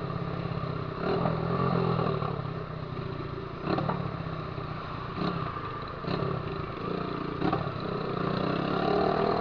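Honda Titan 150 motorcycle running through a 'viúva-negra' aftermarket exhaust while riding, the engine pitch rising and falling with the throttle. Five sharp cracks stand out at irregular intervals.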